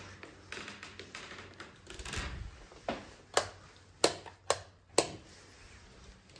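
A run of five sharp clicks, irregularly spaced over about two seconds, after a brief rustle.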